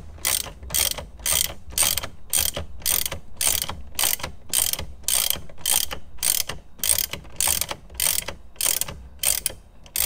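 Hand ratchet clicking in short runs as it is swung back and forth about twice a second, running a triple-square bit down the steering wheel's centre bolt before it is torqued.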